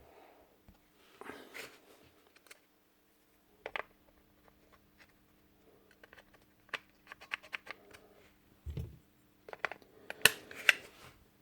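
Small metal parts of a Paslode IM350+ nailer being handled and fitted by hand: scattered light clicks, taps and scrapes, a low thump a little before the end, then a cluster of sharper clicks near the end. A faint steady hum lies underneath.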